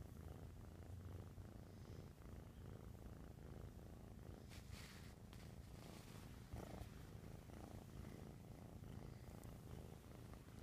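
Kitten purring steadily, a soft low rumble, with brief soft brushing noises about halfway through.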